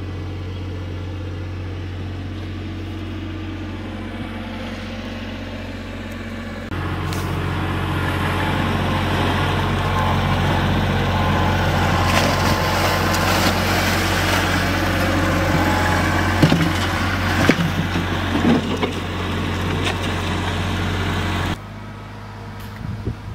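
An engine running steadily at one even pitch, with hiss and a few sharp knocks over it in the middle stretch; the sound jumps abruptly louder about seven seconds in and drops away near the end.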